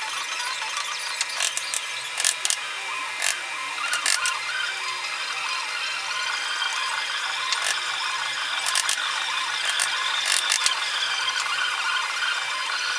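Steady mechanical workshop noise with a faint low hum, broken by frequent short clicks and knocks.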